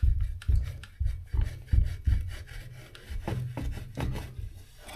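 Cheese wire sawing back and forth through cured Sikaflex sealant behind a ceiling bracket, in repeated rubbing strokes about two to three a second, as the last of the bond is cut.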